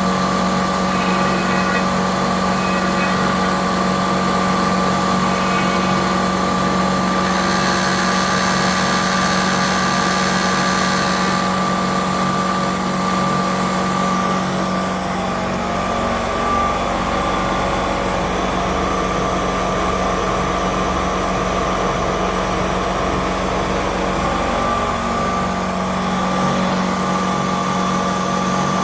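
Milling machine running steadily with a constant machine whine and hum. About halfway through, the tone shifts to a deeper hum for roughly ten seconds, then returns to its earlier sound.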